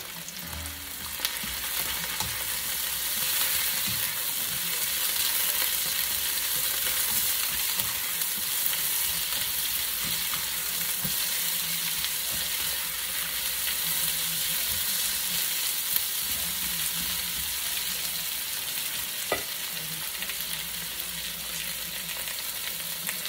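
Sliced vegetables (onion, bell pepper, carrots and snow peas) sizzling as they sauté in a hot wok and are stirred with a spatula: a steady frying hiss with a few light taps.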